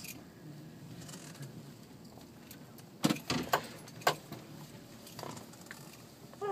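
Car cabin noise while driving, with four sharp clicks a little past the middle.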